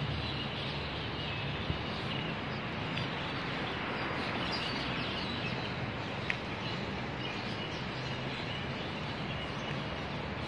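Outdoor city-street ambience: a steady hum of distant traffic with small birds chirping faintly, most between about three and six seconds in.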